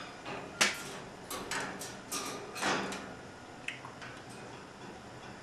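African grey parrot crunching food with its beak: a quick run of sharp cracks over the first three seconds, then a couple of faint clicks.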